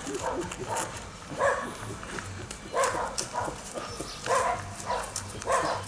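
A dog barking in short separate barks, about six of them, irregularly spaced.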